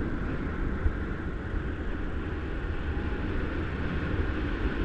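Steady rush of wind over the camera microphone in paraglider flight: a low rumble with a hiss above it.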